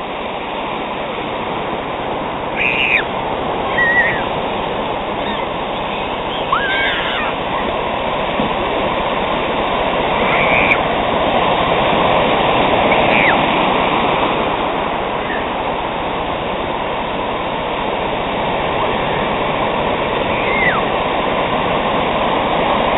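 Ocean surf breaking and washing in the shallows: a steady, loud rush of water. A few brief high-pitched calls rise above it now and then.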